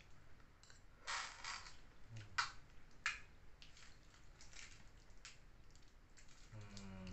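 Faint crackles and rustles of toppings being picked up and placed by hand on a plate of chicken noodles, a few short crackles standing out about one, two and a half and three seconds in.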